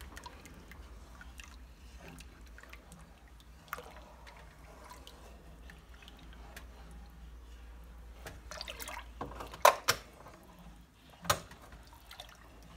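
Wooden spatula stirring milk in a large metal pot: soft liquid swishing with small clicks, and a few sharper knocks of the spatula against the pot about ten and eleven seconds in. A low steady hum sits underneath.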